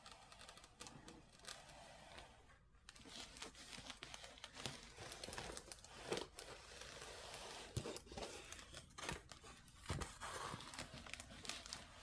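Diamond painting canvas being rolled and unrolled by hand, crinkling with irregular soft crackles.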